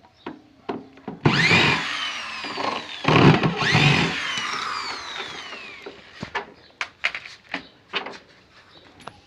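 Electric drill-driver loosening the washing machine tub's screws in two runs, about a second in and again about three seconds in, each motor whine falling in pitch as it winds down. Short clicks and knocks follow near the end.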